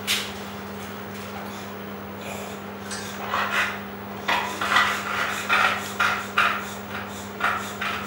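Newborn puppy squeaking in a run of short cries, about two a second, starting about three seconds in, over a steady low hum.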